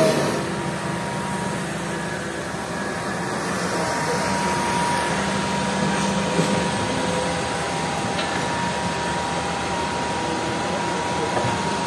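Hitachi EX200 excavator's diesel engine running steadily under working load, with a thin steady whine over it as the boom lifts and swings the bucket.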